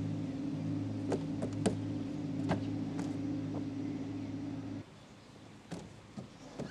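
A steady low motor hum that cuts off suddenly about five seconds in, with several sharp knocks over it. Near the end come a few lighter knocks as feet land on the wooden slide ladder.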